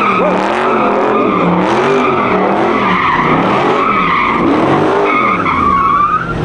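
A car sliding with its tyres squealing in a wavering high screech while its engine revs up and down over and over, about once a second; the squeal is strongest near the end.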